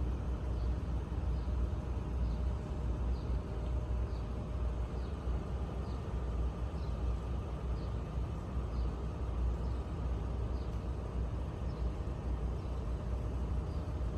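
Steady low rumble of vehicle running noise, with faint high ticks about once a second.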